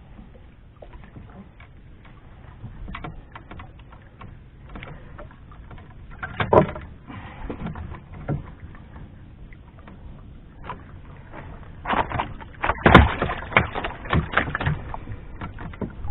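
Scattered clicks and knocks from handling a freshly caught rusty jobfish and its jig aboard a small outrigger boat, with a louder flurry of knocks near the end.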